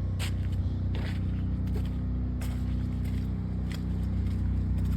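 An engine running steadily with a low, even hum, with a few short clicks and scrapes scattered through it.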